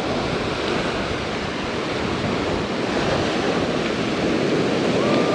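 Ocean surf washing up onto a sand beach in a steady rush, with wind buffeting the microphone.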